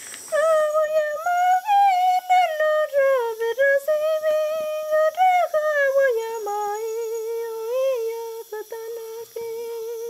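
A single high voice humming a slow, wavering melody. It slides between held notes, then drops about six seconds in to a long, steady lower note.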